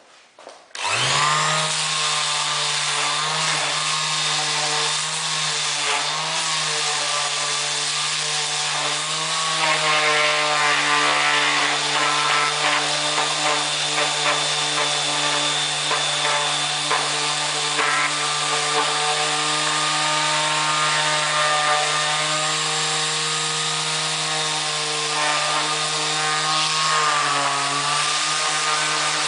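Bosch GSS 280 AE electric orbital sander switched on about a second in, then running steadily with a motor hum and the rasp of sanding. It gets a little louder about ten seconds in, and the hum dips briefly in pitch near the end.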